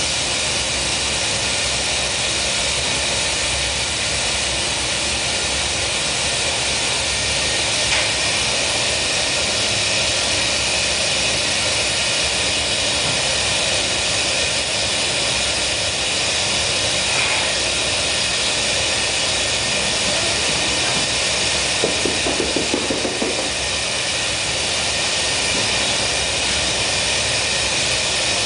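Gas burners of glassworking furnaces and a glory hole running with a steady, loud rushing hiss. A brief rattle of quick clicks comes about two-thirds of the way through.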